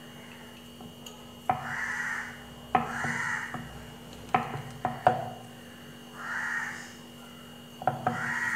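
Sharp knocks of a wooden rolling pin and hands against a wooden pastry board as dough is rolled up, about five of them, each one brief. A bird calls about five times in the background, each call about half a second long.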